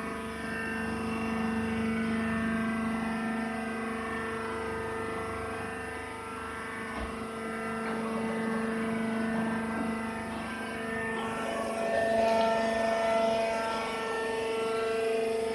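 Sawdust baling press's motor running with a steady humming drone, getting a little louder with extra higher tones about eleven seconds in.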